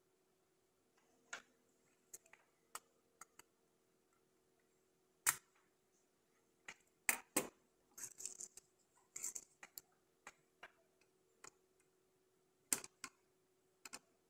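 Scattered quiet clicks and taps of tools and parts being handled during hand soldering of through-hole power MOSFETs on a circuit board. About eight to nine and a half seconds in comes a short cluster of hissy scrapes. A faint steady hum runs underneath.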